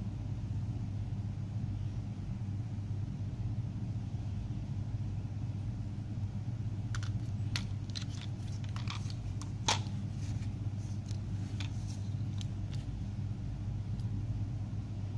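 A steady low hum throughout, with a scatter of light clicks and taps from about halfway in, the sharpest one about two-thirds through: a CRT deflection yoke's plastic frame being turned over and handled.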